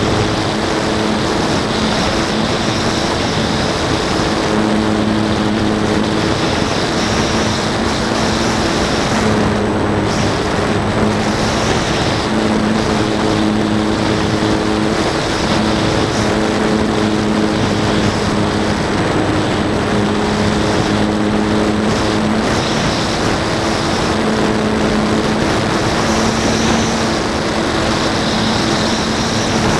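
Calypso RC airplane's motor and nose propeller running at a steady pitch, heard from a camera mounted on the plane in flight, with heavy wind rush over the microphone. The hum holds its pitch but swells and fades every few seconds.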